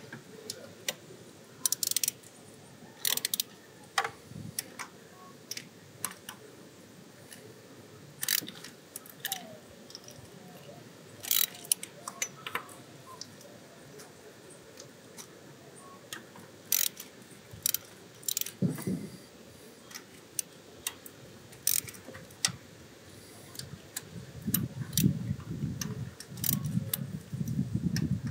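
Hand ratchet and socket clicking and clinking at irregular intervals as intake manifold bolts are worked loose on the engine, with low bumps and knocks of parts being handled near the end.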